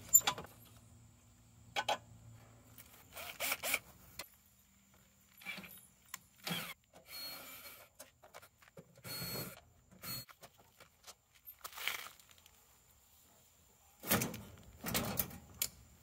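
Handling noise on the sheet-metal cabinet of an outdoor packaged HVAC unit: scattered clicks and rattles, with two short whirring bursts of a cordless drill backing out the access-panel screws. The metal panel rattles loudest near the end as it is pulled off, and a low hum stops about four seconds in.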